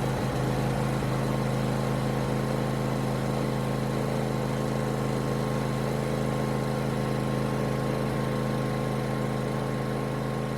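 Briggs & Stratton engine of a Craftsman Z560 zero-turn mower running at a steady, unchanging speed, freshly filled with new oil.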